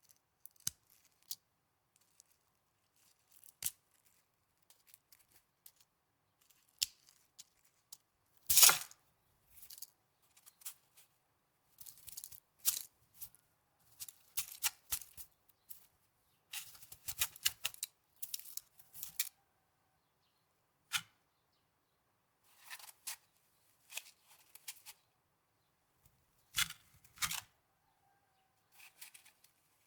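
Snow being handled and crunched in short, irregular, crisp bursts with pauses between them, the loudest about eight and a half seconds in.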